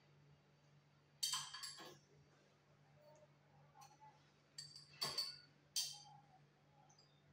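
Glassware clinking as a glass pipette is handled against a beaker and flask: a few sharp clinks about a second in, then another cluster around five to six seconds, over a faint steady low hum.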